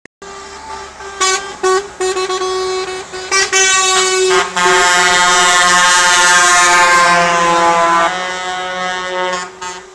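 Truck air horns sounding: a few short blasts, then one long blast of several seconds that sags slightly in pitch and fades, over a steady low hum.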